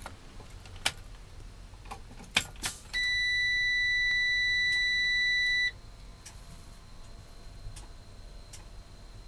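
Keys rattling and clicking in the ignition switch of a 2003 Freightliner FL80, then the dash warning buzzer sounds as one steady high beep for nearly three seconds at key-on, before the engine is cranked.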